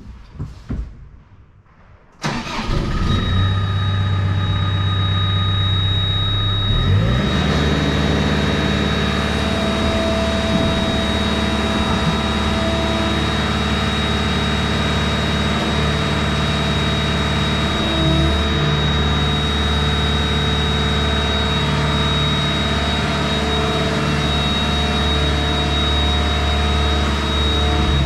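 Construction machine's diesel engine starting about two seconds in, then running steadily, its pitch shifting a few seconds later, with a steady high-pitched tone over it.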